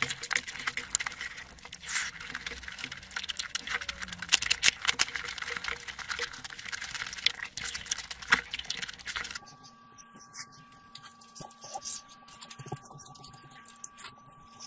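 Close-miked ASMR eating sounds: dense, crackly wet clicking and squishing as fingers mix rice into fish curry and tear apart a whole curried fish. About nine seconds in, it changes to quieter, sparser eating clicks over a faint steady hum.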